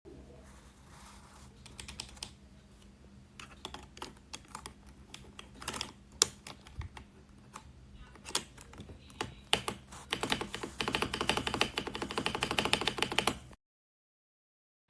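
Mechanical keyboard keys with Akko Cream Blue V3 Pro tactile switches being typed on. Scattered keystrokes give way about ten seconds in to fast, continuous typing that cuts off suddenly near the end.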